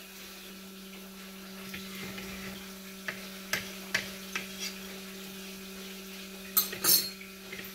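Light metal clinks and taps as the lid comes off a dosa pan and a metal turner works around the cooking dosa, then a brief harsh scrape of the turner against the pan near the end, over a steady low hum.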